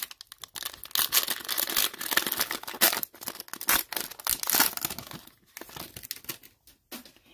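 Plastic wrapper of a basketball trading-card fat pack being torn open and crinkled, a dense crackle over the first five seconds, then a few softer rustles as the cards are pulled out.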